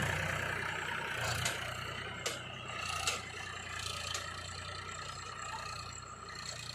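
Heavy diesel machinery engine running steadily at a low idle-like hum, with a few short knocks in the first half.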